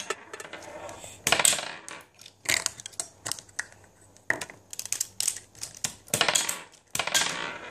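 Small marbles from a B-Daman marble-shooting toy clattering and rolling across a tabletop game stadium: a string of sharp clicks and knocks, roughly one a second.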